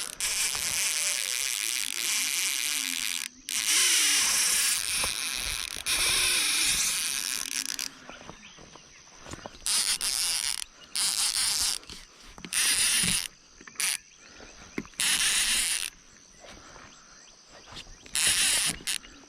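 Fishing reel's drag buzzing as a hooked fish pulls line: one long run of about eight seconds, then short runs of one to two seconds that start and stop abruptly.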